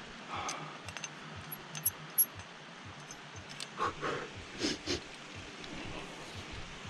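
Sharp metallic clinks of carabiners and chain at a climbing anchor about two seconds in, the loudest sounds, followed by a climber's hard breathing, several heavy exhalations in quick succession.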